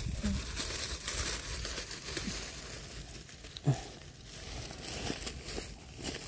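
Irregular crinkling and rustling with one sharp knock a little past the middle.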